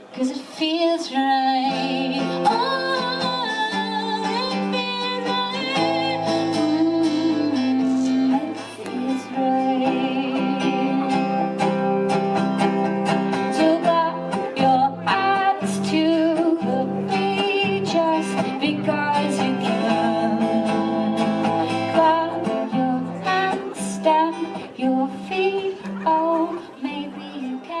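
Live music: acoustic guitar playing, with a woman's voice singing.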